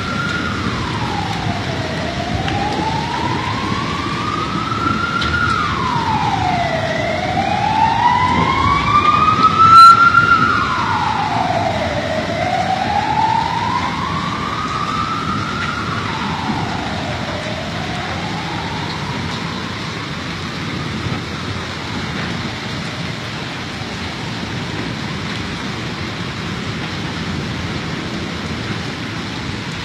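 Emergency vehicle siren wailing: its pitch rises slowly and drops quickly about every three and a half seconds. It is loudest about a third of the way in and fades out about two-thirds of the way through, over a steady hiss of heavy rain on a flooded street.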